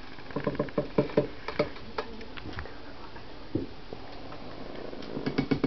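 Quick runs of clicking and tapping from a Doberman and his puppies at play, like claws and paws on a hard floor: one flurry about half a second in and another near the end, with a few scattered taps between.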